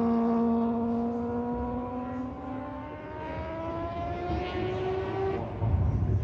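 Mazda 787B's four-rotor rotary engine running with a high, steady note that then rises in pitch as it accelerates. The note cuts off about five seconds in, leaving a low rumble.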